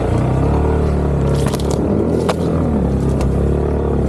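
Honda ADV150 scooter's single-cylinder engine running steadily under throttle, with a few sharp knocks or scrapes about one and a half, two and three seconds in.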